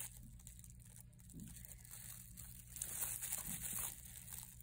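Faint crinkling and rustling of thin plastic under a gloved hand working a measuring cup, a little louder about three seconds in.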